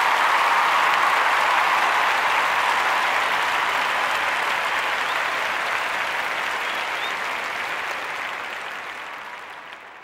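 Crowd applause, a dense even clatter of clapping that fades out steadily over the last couple of seconds.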